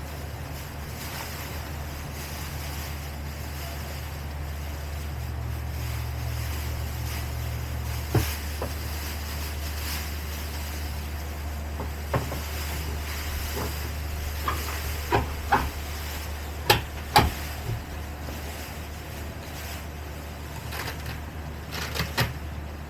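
Scattered knocks and clicks of a sofa section and its metal brackets being handled and fitted into place, with a few sharper clacks close together in the second half. A steady low hum runs underneath.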